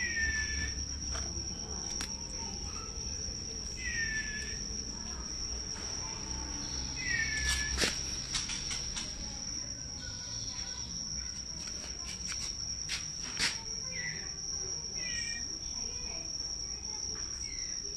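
Steady high-pitched cricket trill, with a young white-rumped shama giving short falling chirps several times. Two sharp clicks sound midway.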